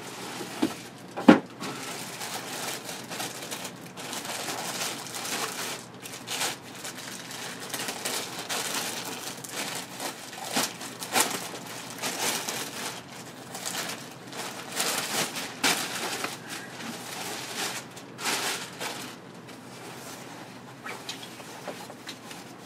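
Clear plastic bag crinkling and rustling unevenly as a backpack is pulled out of it and handled, with one sharp knock a little over a second in.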